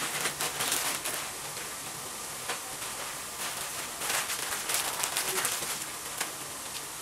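Meat sauce frying in a skillet over a gas burner: a steady sizzle with bursts of crackling and popping near the start and again about four to five and a half seconds in.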